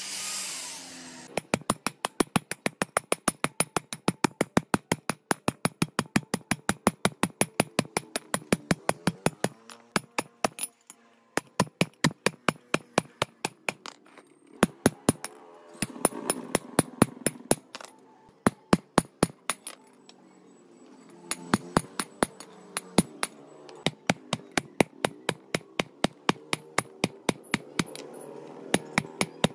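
Hammer blows on metal, fast and even at about four strikes a second, each with a bright ring, broken by a few short pauses. A power tool stops just over a second in.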